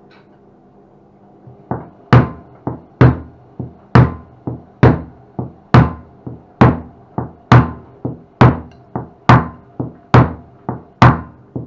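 A steady run of sharp knocks, about two a second alternating loud and softer, starting a couple of seconds in. They come as the drum's bearing holder is driven onto its guides on a Bauknecht top-loading washing machine.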